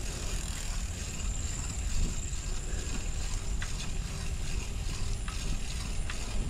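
Bicycle being ridden along a paved path: a steady low rumble of wind and tyres, with scattered light clicks and rattles from the bike.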